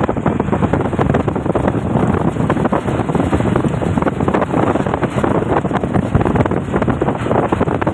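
Wind buffeting the microphone as it rides in a moving vehicle, a loud steady rush that flutters constantly, with the vehicle's road noise underneath.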